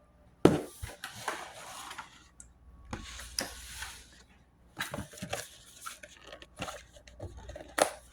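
Blind-box packaging being torn open and crinkled by hand: a sharp tear about half a second in, rustling, then a run of small clicks and knocks as the box is handled.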